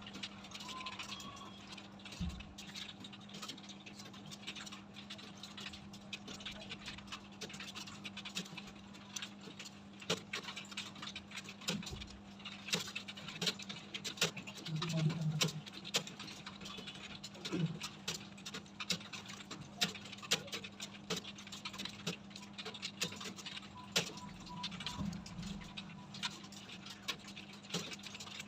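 Many computer keyboards being typed on at once: rapid, irregular key clicks, with a steady low hum underneath.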